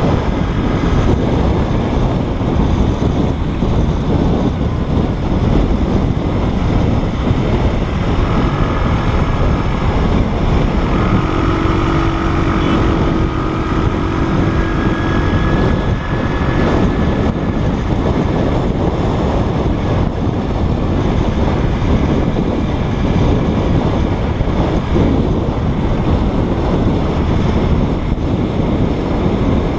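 Wind buffeting the microphone of a camera on a moving motorbike, over the noise of the bike and road. From about eleven to sixteen seconds in, a steady humming tone rises out of the noise.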